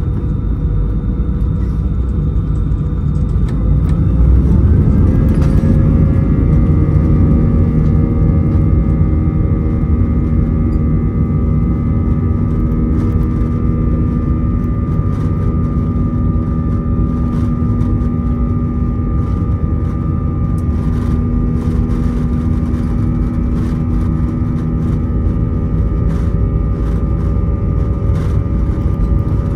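Airbus A320-200 jet engines heard from the cabin over the wing, running with a steady whine over a low rumble as the aircraft rolls on the ground. About four to six seconds in, the engine tones rise slightly and the sound gets louder as thrust is added, then holds steady.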